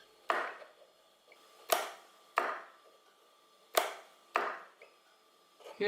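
Small solenoid mounted on a wooden block clicking as a reed switch closes its circuit: five sharp clicks, a single one first and then two pairs about two-thirds of a second apart.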